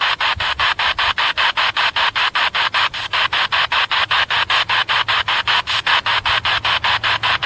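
Spirit box ("black box") radio scanner sweeping through stations: hissing radio static chopped into short bursts about six times a second.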